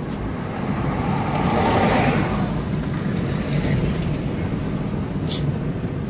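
Road and engine noise heard inside a moving car, steady, swelling for about a second a second or so in, with a couple of faint clicks.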